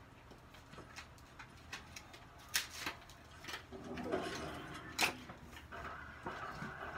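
Packaging being handled: a few sharp clicks and taps, the loudest two about two and a half and five seconds in. A muffled voice rises in the background around the middle.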